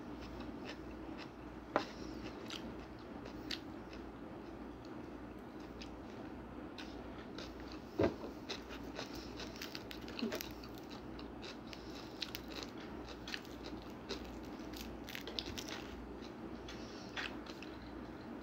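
Close-up eating sounds: biting and chewing food eaten by hand, with many small clicks and crackles and a couple of sharper ones about two and eight seconds in, over a steady low hum.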